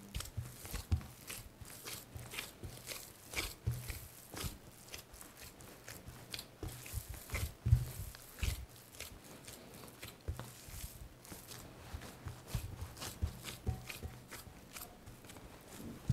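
Minced-meat mixture being kneaded and pressed by a gloved hand in a ceramic dish: irregular wet squishing and soft slaps.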